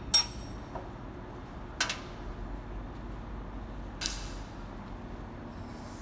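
Steel hand tools clinking against the excavator's steel frame three times, each with a short metallic ring, the first the loudest, over a steady low hum.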